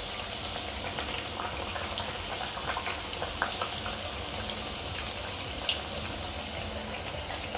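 A corn-flour (makki atta) chausela deep-frying in hot oil in a kadai over a medium-low flame: a steady sizzle with small crackles and a couple of louder pops, one about three and a half seconds in and one near six seconds.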